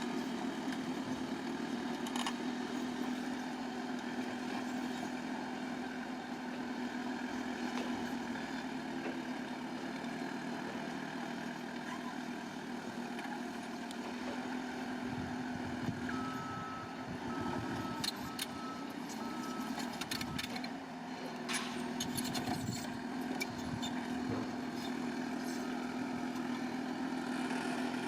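Bulldozer diesel engine running steadily, its note wavering under load in the middle. About two-thirds of the way in, a reversing alarm beeps for a few seconds, and a few sharp metallic clanks come in around then.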